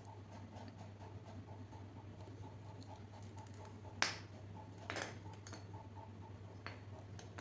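Small plastic clicks and taps from miniature toy kitchen pieces being handled, with a sharp click about four seconds in and another about a second later, over a steady low hum.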